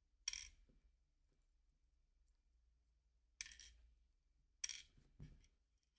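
Sharp clicks and clinks of small hard parts and tools being handled and set down on a work mat: one just after the start, then three more in the second half, close together near the end.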